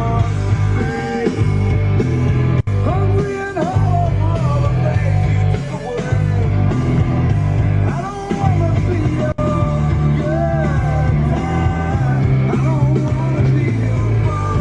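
Rock music with a singing voice and heavy bass, playing on the car's Harman Kardon stereo inside the cabin.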